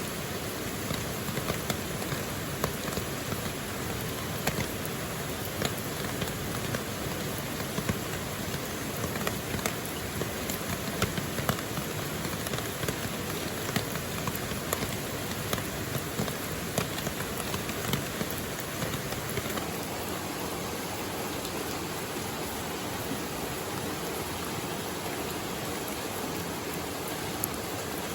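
Steady rain with many sharp individual drop hits over a constant rush of flowing water; the drop hits thin out about two-thirds of the way through.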